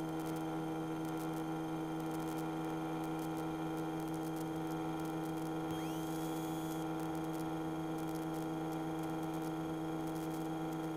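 Steady electrical hum on the cockpit intercom audio feed, made of several fixed tones, with a faint brief rising whine about six seconds in.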